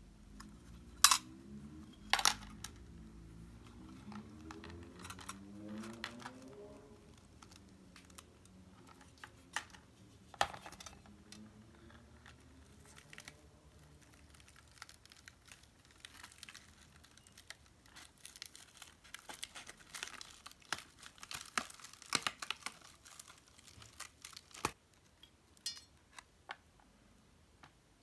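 Paper being handled and crinkled close up, with a few sharp clicks, the loudest about a second and two seconds in, and a denser spell of crinkling and small ticks in the second half.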